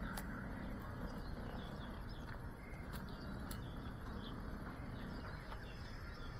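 Faint outdoor ambience: small birds chirping now and then over a low steady rumble, with a few sharp clicks.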